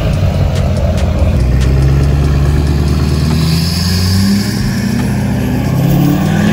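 The 2013 Chevy 2500HD's LML Duramax 6.6 L turbo-diesel V8, breathing through a 5-inch straight-pipe exhaust with the DPF deleted, sounds loud as the truck passes close and accelerates away. Its pitch climbs, drops back about four seconds in, and climbs again.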